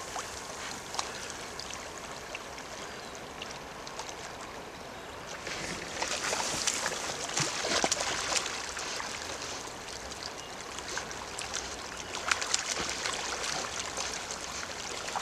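Shallow river flowing steadily, with a louder stretch of splashing in the water about six to nine seconds in and more scattered splashes near the end.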